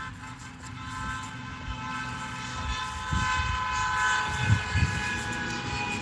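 Car horn held down in one long continuous blast, several steady tones together, growing louder through the blast.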